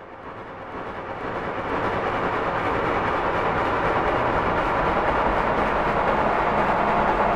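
Horror ringtone sound effect: a dense, rushing drone that swells in over about two seconds, then holds steady.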